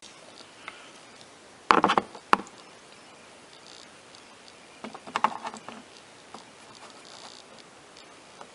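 Light clicks and scrapes of a screwdriver on the screw of a plastic push-pin fastener, in two short clusters about two and five seconds in. The screw spins in place without backing out: the fastener is stripped.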